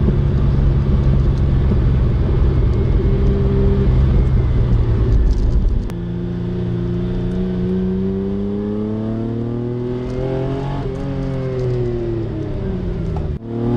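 Lancia Stratos's Ferrari Dino V6 engine running at steady revs, then from about six seconds in pulling up with the revs rising steadily; near eleven seconds the revs drop and climb again, and the sound cuts out briefly just before the end.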